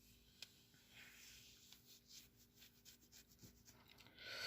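Near silence with faint handling sounds: a few small clicks and light rubbing, then a louder hiss that comes in right at the end.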